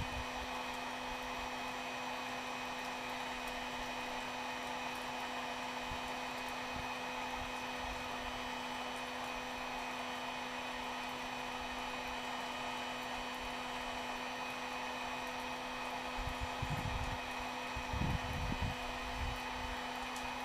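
Heat gun running steadily on high, a constant fan whirr and rush of air with a steady hum, heating a fishing rod's tip top to soften the glue holding it. A few low rumbles come in near the end.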